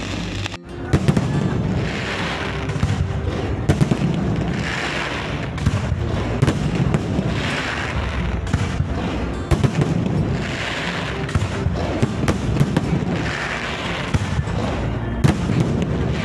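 Aerial fireworks going off overhead in quick succession: many sharp bangs and crackles, starting about a second in.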